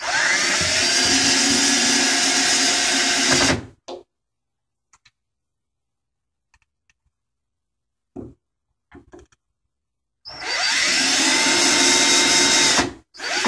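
Cordless drill driving self-tapping screws into the lock keeper on a vinyl window sash: a run of about three and a half seconds whose whine rises as the motor spins up, then a pause with a few small clicks, then a second run of about two and a half seconds and a short burst near the end.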